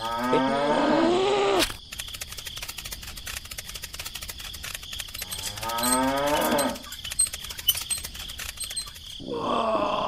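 Cow mooing twice: a long moo at the start and a shorter one a little past the middle, both bending in pitch, dubbed in as a sound effect for a toy cow.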